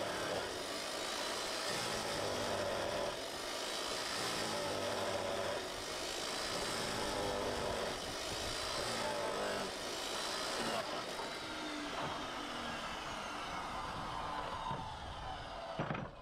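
Ozito abrasive cut-off saw running with a steady whine as it cuts through stainless steel pipe, fed slowly a little at a time so the stainless does not heat up and work-harden.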